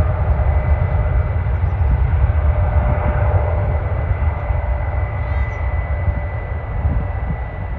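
Jet airliner engines running: a loud, steady low rumble with a held high whine, easing off slowly towards the end as the aircraft moves away.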